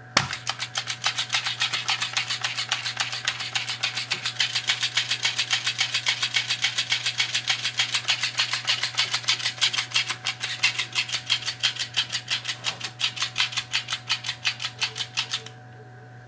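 Electric wagging-fish toy's motor-driven tail flapping back and forth in a fast, even beat of about six strokes a second, set off by a touch on its sensor. It stops suddenly near the end.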